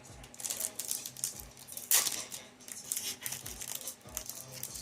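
Crinkling of a foil Yu-Gi-Oh! booster pack wrapper being handled and torn open, in short crackly bursts with a louder sharp crackle about two seconds in.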